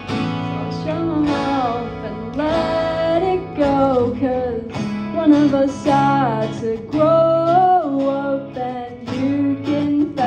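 A small rock band playing live: strummed electric guitars over steady low notes, with a melody line that slides and bends between notes over the top.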